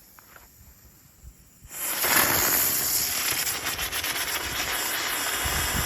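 TNT ground bloom firework spinning on the ground with a loud, steady hiss that starts suddenly about two seconds in after a quiet stretch.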